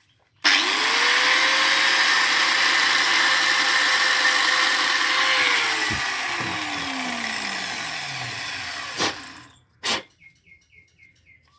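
Angle grinder switched on, spinning up and grinding steel for about five seconds, then switched off and winding down over about four seconds. Two sharp knocks follow near the end.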